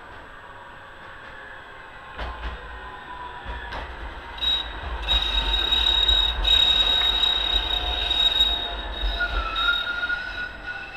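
An articulated low-floor tram approaches and passes close by on its rails. Two knocks come from the wheels over the track as it nears. It grows louder, with a steady high wheel squeal and a low rumble through the middle as it goes past, then fades near the end.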